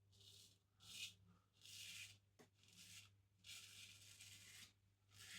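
Faint strokes of a razor scraping through lathered stubble, about one a second, with one longer stroke in the middle, on the first shaving pass.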